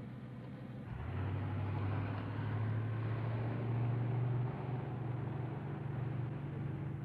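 A steady, low engine hum, like a motor vehicle running, that gets louder about a second in and eases slightly after about four and a half seconds.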